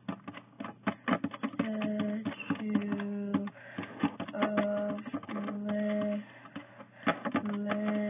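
iPad on-screen keyboard clicking as letters are tapped out one by one, in quick irregular clicks. A low held tone keeps sounding in short stretches of under a second, stopping and starting several times.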